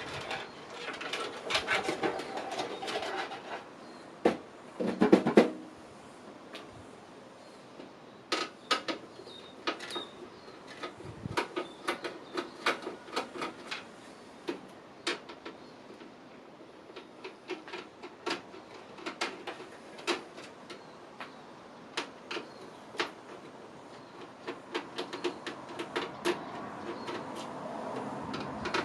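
Irregular clicks, taps and rattles of computer parts being handled and fitted, with a busy spell of handling in the first few seconds and the loudest knocks about five seconds in.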